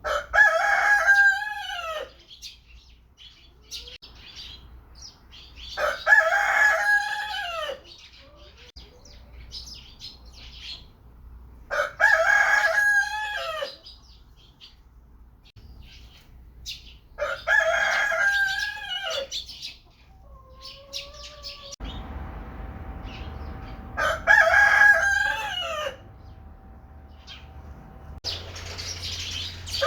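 Rooster crowing five times, about every six seconds, each crow about two seconds long.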